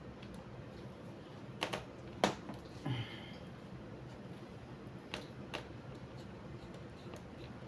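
A handful of sharp, separate clicks and taps of a screwdriver and small screws against a laptop's plastic bottom case, about five spread over several seconds.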